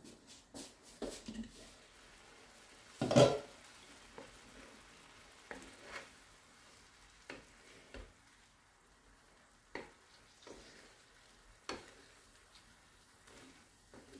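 Shrimp sizzling faintly in butter in a frying pan, with a wooden spatula stirring and knocking against the pan now and then. One louder clatter about three seconds in, as the pan's glass lid comes off.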